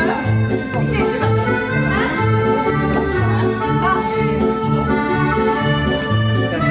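Accordion dance music: held chords over a bass that alternates between two notes in a steady beat.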